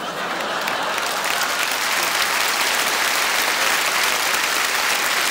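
Theatre audience applauding, swelling over the first second and then holding steady.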